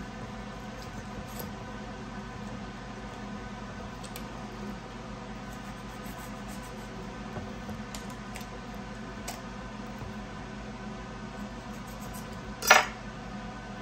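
A knife cutting raw chicken apart at the joints on a wooden cutting board: faint clicks and scrapes over a steady background hum, with one sharp, loud knock near the end.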